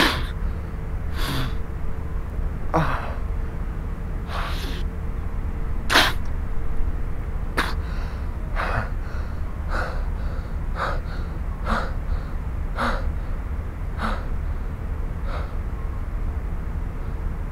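A man breathing hard in short, sharp breaths, roughly one a second, while lying face down in wet mud after throwing himself to the ground. A steady low rumble of wind on the microphone runs beneath.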